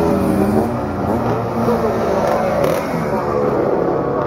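Motorcycles passing close by in turn, their engines running and accelerating, the pitch rising and falling as each goes past.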